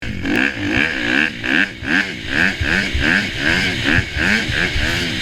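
Dirt bike engine revving up and down in quick, repeated throttle blips, about three a second.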